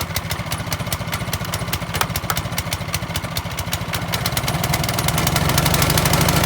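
Troy-Bilt Storm 2620 snowblower's small single-cylinder engine running steadily just after starting on the first pull, a sign the engine is well tuned. It gets somewhat louder about four to five seconds in.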